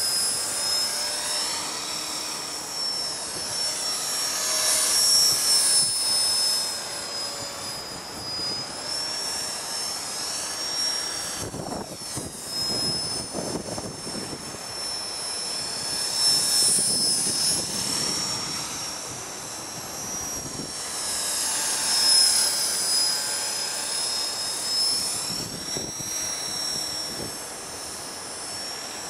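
HK-450 electric RC helicopter flying: a high motor-and-rotor whine that wavers up and down in pitch as it manoeuvres, with gusts of wind buffeting the microphone for a few seconds midway.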